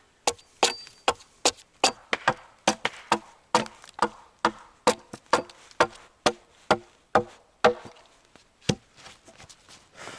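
About twenty rapid blows of a hand tool chopping dry, stuck bark off a chainsaw-cut wooden board, two to three strikes a second, stopping about eight seconds in with one last strike after a pause.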